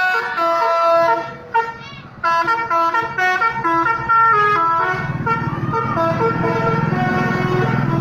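A bus's basuri multi-tone musical horn plays a quick melody of distinct horn notes. About four and a half seconds in, the melody stops and the bus's engine rumbles as it passes close by.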